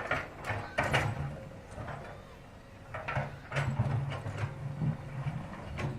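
Komatsu excavator loading rock: the diesel engine runs with a low rumble that rises and falls, and rocks knock and clatter several times.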